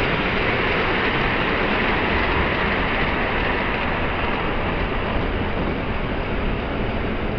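Steady, even running noise of model trains on a layout, blended with the background hum of the layout hall, with no distinct clicks or knocks.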